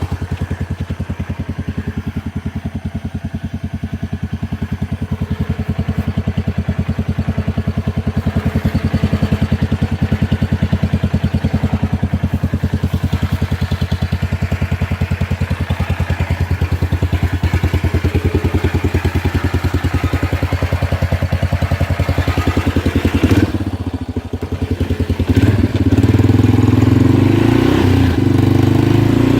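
Four-wheeler (ATV) engine running steadily with a fast, even firing beat; about 24 seconds in it dips briefly, then runs louder and stronger under more throttle for the last few seconds.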